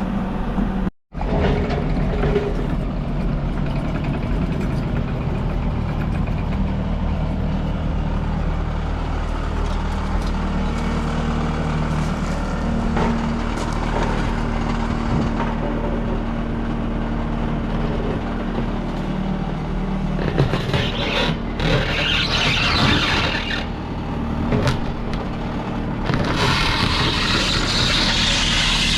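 Tractor engine running steadily, with a loud hissing rush joining it about twenty seconds in and again near the end.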